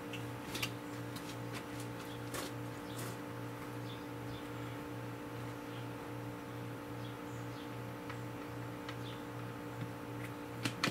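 Low, steady machine hum that pulses evenly, about one and a half times a second, with a few faint clicks and faint high bird chirps. Two small clicks come near the end.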